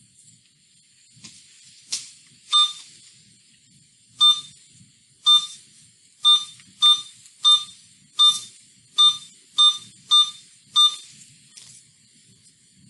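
IV infusion pump beeping about a dozen times, short identical electronic beeps at uneven intervals, as the pump is programmed and started to run saline.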